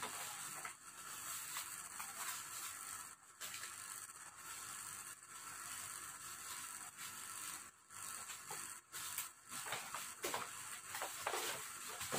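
Paper gift bag and packaging rustling and crinkling as they are handled by hand, an uneven rustle that comes and goes.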